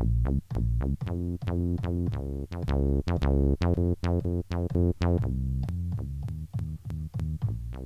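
Chopped slices of a bass loop played back one after another from a Roland SP-404 mk2 sampler's pads: short pitched bass notes that start and stop abruptly in quick succession, with a click at each cut. The loop has been sliced into 16 equal parts by time division.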